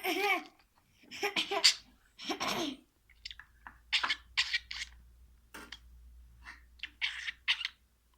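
Budgerigar imitating a child's cough: a few short, throaty, cough-like bursts, then a run of short, sharp, high calls from about four seconds in.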